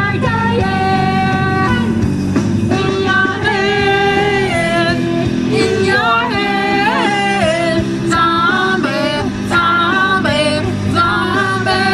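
A rock song with a woman singing long held and sliding notes over guitar and band, loud throughout.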